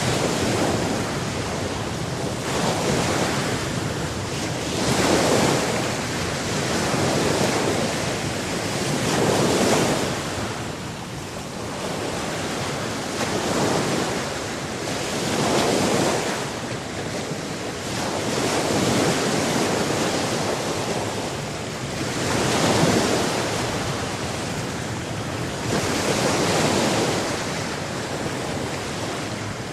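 Ocean waves breaking and washing in, one surge after another every few seconds, with a steady rush between them.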